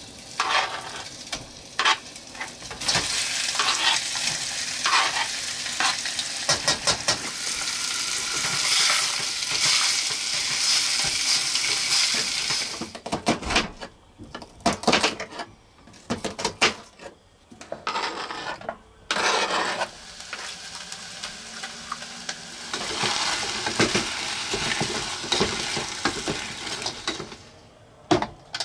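Chicken pieces sizzling as they fry in a pot on a portable butane stove, with the scrape of a utensil. Midway the sizzle drops away under a run of knife chops on a cutting board, then onions sizzle as a wooden spatula stirs them in the pot.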